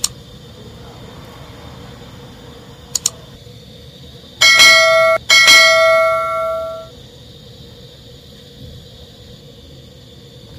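A mouse-click sound effect, then a quick double click, then a bell rung twice with a bright ring of several tones that fades out over about a second and a half: the click-and-ding sound effect of a subscribe-button and notification-bell animation.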